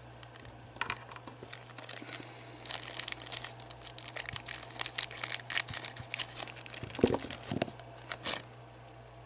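Thin clear plastic bag crinkling and crackling as it is handled and cut open with scissors, with a couple of duller knocks near the end; a steady low electrical hum underneath.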